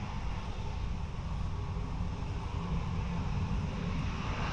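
Steady low rumble of wind buffeting the microphone, with a faint even hiss above it and no distinct events.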